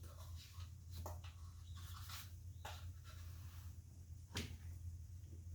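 A few faint, scattered clicks and knocks of something being handled, the sharpest about four seconds in, over a steady low hum.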